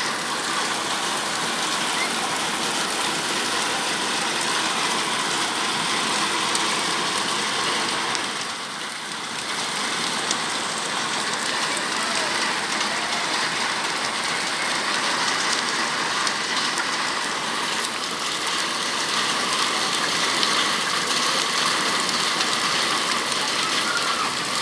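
Heavy rain falling in a steady downpour hiss, easing briefly about eight seconds in.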